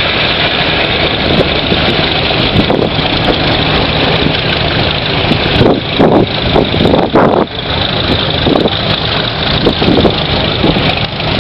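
Vintage farm tractor engine running steadily under plowing work, with a few louder swells part way through.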